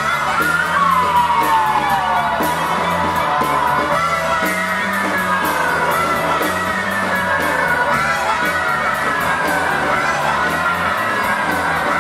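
Loud live rock band: electric guitars, bass and a drum kit with fast, steady cymbal strokes, over which high wailing tones slide downward in pitch again and again.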